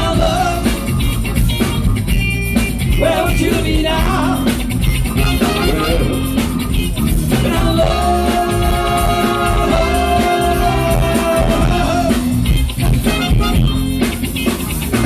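Live soul band playing through a PA: lead and backing vocals over electric guitar, bass, keyboards and drum kit, with voices holding a long note together in the middle.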